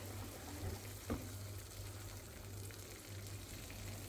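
Kuymak (cornmeal, butter and melted cheese) sizzling faintly in a nonstick frying pan while a wooden spoon stirs it, over a steady low hum, with one light knock about a second in.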